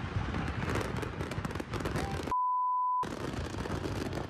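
A rapid, dense crackle of pops from stockpiled fireworks going off in a burning house. A little past the middle, a steady censor bleep replaces the sound for under a second.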